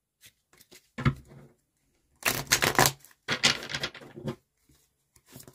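A deck of reading cards shuffled by hand, in a few short bursts of quick, papery card flicks.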